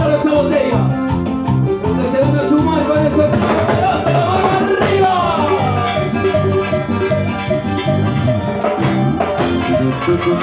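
A live Latin tropical dance band playing, with a six-string electric bass line and timbales and other percussion over a steady dance beat.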